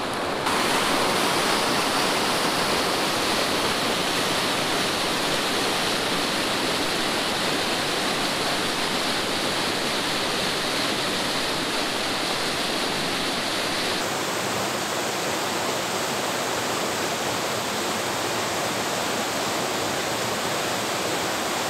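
Steady rush of a rocky mountain creek's cascades and waterfall. The sound steps louder about half a second in and changes in tone about two-thirds of the way through.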